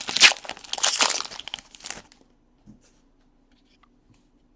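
Plastic wrapper of a Panini Diamond Kings baseball card pack crinkling and tearing as it is opened: dense crackly rustling for about two seconds that then stops. After that, only a few faint ticks over a faint low hum.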